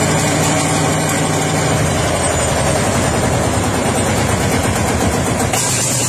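Lanz Bulldog tractor's single-cylinder two-stroke hot-bulb engine running steadily, freshly started with a shotgun-cartridge starter.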